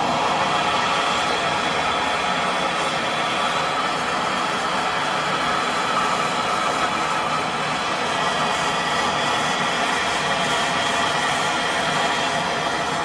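Gas brazing torch flame hissing steadily while air-conditioner refrigerant pipe is brazed.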